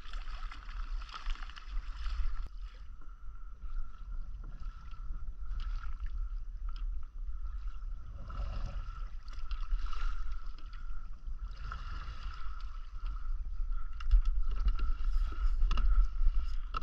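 Water sloshing and lapping against a kayak hull at sea, swelling and fading with the waves, with a low wind rumble on the microphone. A thin, steady high whine runs underneath, and a few short clicks come near the end.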